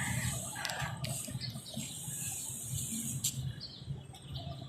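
Birds chirping in the background over a low steady rumble, with a sharp click a little past three seconds in.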